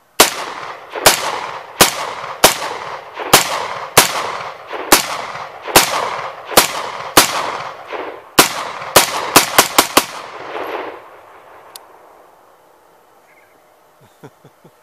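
A 10.5-inch-barrel AR-15 pistol in 5.56 firing semi-automatic: a string of about seventeen loud shots, each with an echoing tail, coming steadily at first and then in a fast burst of about five a second before stopping about ten seconds in.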